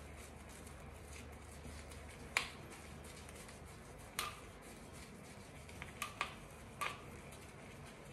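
About six short, sharp clicks at uneven spacing; the loudest is about two and a half seconds in, and four come close together in the second half. Under them is a faint, steady low hum.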